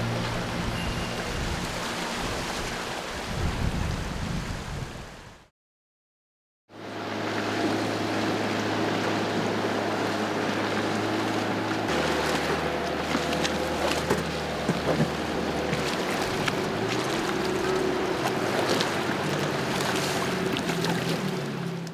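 Background music fades out, a second of silence, then a small fishing boat's motor runs steadily over water and wind noise as the boat moves across the bay; the engine note shifts lower about five seconds after the boat sound starts and back up a few seconds later.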